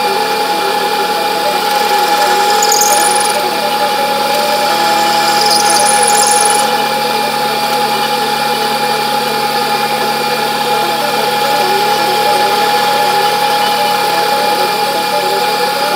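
Metal lathe running and turning a shaft with a cleanup cut, a steady whine with several constant tones, with brief higher cutting noise twice in the first half.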